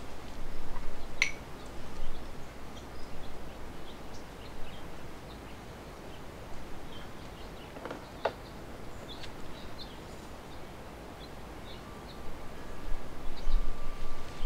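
Small birds chirping now and then over a steady outdoor background hiss, with a couple of brief knocks, about a second in and about eight seconds in.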